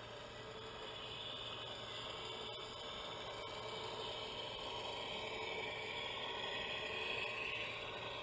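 Radio-controlled scale model trucks running: a steady motor-and-gear whir that grows louder as a truck drives closer.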